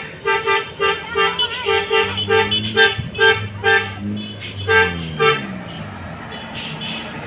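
Basuri musical bus horn tooting a fast run of short chord blasts, about four a second, pausing briefly about four seconds in, then sounding three more and stopping a little after five seconds.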